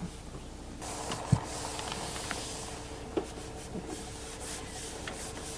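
Hands rubbing and pressing across the surface of a flexible solar panel, smoothing it down onto its butyl adhesive to work out air pockets. There is a dull thump about a second in and a few light knocks, over a steady hiss.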